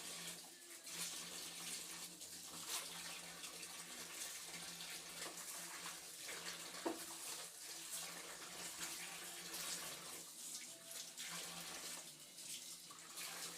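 Water running from a kitchen tap into a sink while a kitchen towel is washed by hand, with scattered splashes and small knocks.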